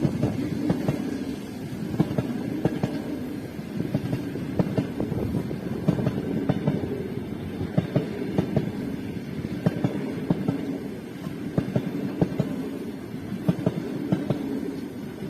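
Passenger train rolling past: a steady rumble, with the wheels knocking sharply and irregularly over the rail joints.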